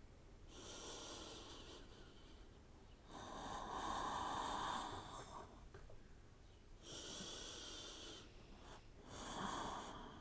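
A person breathing slowly and deeply while holding a yoga forward fold. There are four soft, long breath sounds of one to two seconds each, the second and last louder.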